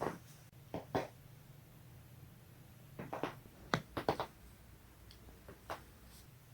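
Neck joints cracking: a series of short, sharp pops, several coming in quick pairs, with a rapid cluster of three or four about four seconds in.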